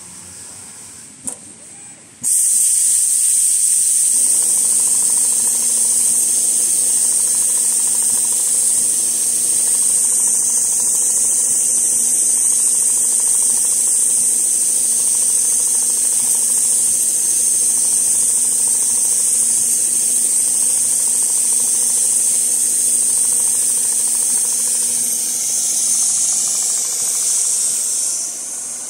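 A loud, steady hiss of compressed air starts abruptly about two seconds in, over the low steady hum of a CNC leather sewing machine running its pattern. The hiss eases off near the end.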